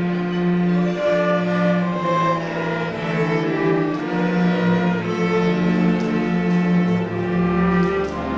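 Youth string orchestra of violins, cellos and double bass playing together: long bowed notes, with a steady low line under a moving melody.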